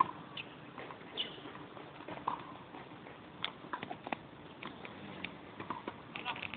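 Tennis practice: scattered knocks of tennis balls being hit and bouncing, at irregular intervals, with a few short squeaks between them.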